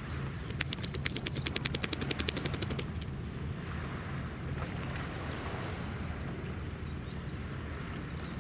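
Low steady drone of a ship's engine carrying across the water. In the first few seconds a rapid clicking rattle of about ten clicks a second runs over it, and faint high chirps follow later.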